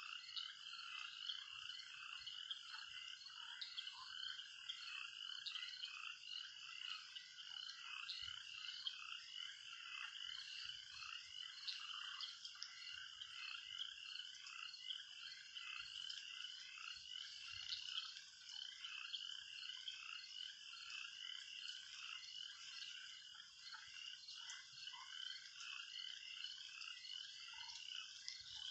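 A steady chorus of frogs croaking, many calls overlapping without a break.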